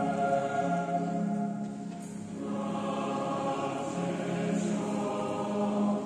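Boys' and men's choir singing a Christmas carol in long held notes, with a church's reverberant ring; the singing eases briefly between phrases about two seconds in.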